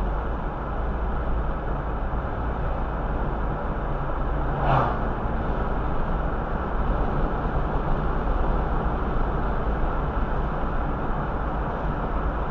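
Steady road and tyre noise with engine hum, heard from inside a car cruising at about 40 mph. A brief louder rush of noise comes just before the five-second mark.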